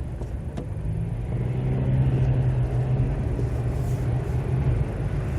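Car engine and tyre noise heard from inside the cabin while driving: a steady low hum that grows louder about a second and a half in and eases slightly near the end.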